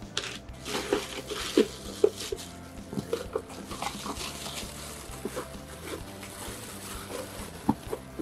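Plastic bag wrapping crinkling and rustling as steamer parts are handled, in many short, irregular crackles.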